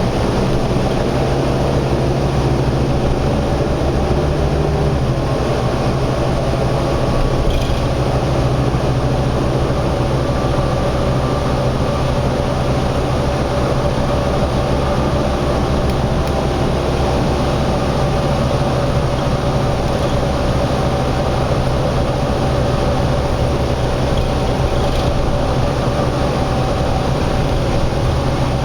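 Steady vehicle noise, a constant low rumble with a faint hum above it that does not rise or fall.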